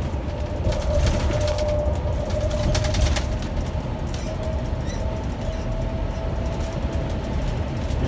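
Inside a 2018 Blue Bird electric school bus under way: a steady low road rumble with a thin steady whine over it, and a burst of rattling and clattering about one second and again about three seconds in.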